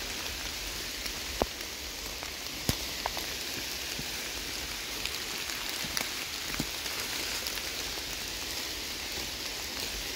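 Heavy rain falling steadily, with a few sharper drops ticking close by.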